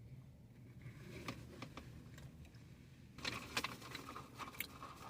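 A person eating close to the microphone: soft chewing with scattered small clicks and crackles, busier from about three seconds in.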